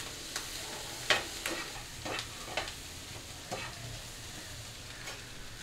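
Chopped onion, tomato, green chilli and egg sizzling in oil in a frying pan while a steel slotted spatula stirs them, scraping and knocking against the pan about seven times.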